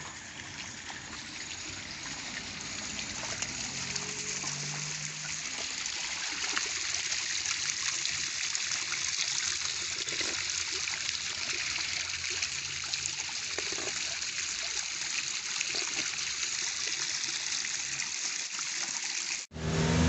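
A thin waterfall pouring down a rock face and splashing onto stones: a steady, even splashing hiss that cuts off abruptly near the end.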